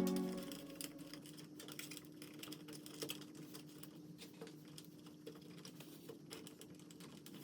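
Background music fading out, then faint, irregular clicking of keys being typed on a computer keyboard over a low steady hum.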